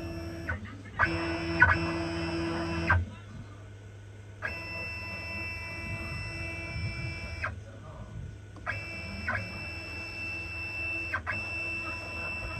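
Stepper motors of a DIY CNC router whining at steady pitches as the machine makes a series of moves, each starting and stopping abruptly after one to three seconds, over a steady low hum.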